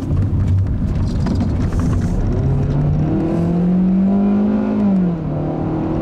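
Hyundai Accent's 1.6-litre four-cylinder engine heard from inside the cabin while accelerating, over road rumble. The engine note climbs for a couple of seconds, drops as the automatic transmission shifts up about five seconds in, then holds steady.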